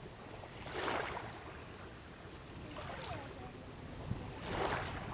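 Small waves lapping on a lake shore, three soft washes about two seconds apart.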